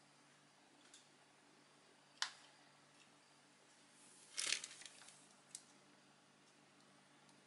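Handling sounds of a lens ring, lens pen and plastic bag over a faint steady hum: a sharp click about two seconds in, a short cluster of clicks and rustle as the lens ring is picked up about four and a half seconds in, and one more light tap a second later.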